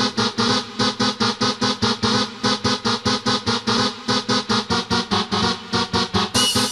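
1995 house music: a synthesizer pattern pulsing about four or five times a second over a steady bass line. Near the end a brighter high layer comes in with a short repeating high chirp.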